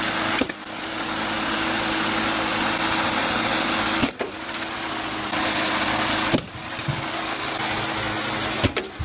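Small gas push mower engine running steadily, tipped over with its blade spinning. A sharp crack about four seconds in as a spray paint can thrown into the blade bursts, with a few more sharp knocks later.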